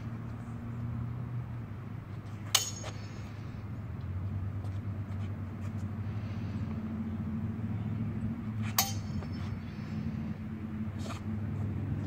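Practice swords' blades striking together twice, sharp metallic clashes about two and a half seconds in and again near nine seconds, each with a brief ring, and a fainter knock around eleven seconds, over a steady low hum.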